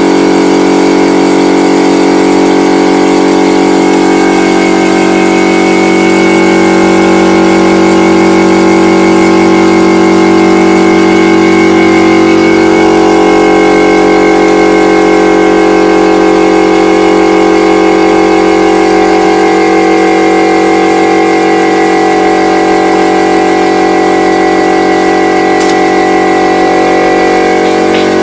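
Electric air compressor running with a loud, steady hum made of several held tones. It is used to blow dust out of a computer during servicing.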